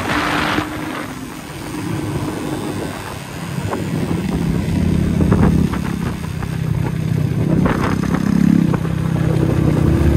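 Motorcycle engines running, the pitch rising and falling as they are revved, with a short rush of noise at the start.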